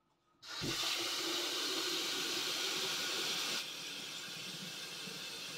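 Kitchen mixer tap turned on about half a second in, water running steadily from it into a pot; the sound drops a little past halfway.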